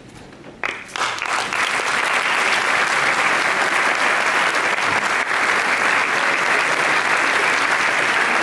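Audience applause breaking out suddenly about a second in, then continuing steadily.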